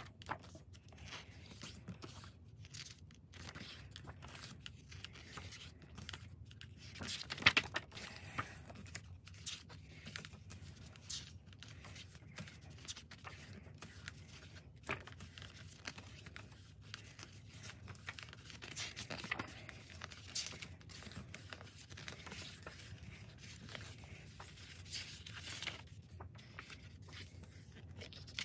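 Glossy pages of a photo book being turned by hand one after another: quiet paper swishes and rustles, with one louder sharp snap about seven and a half seconds in.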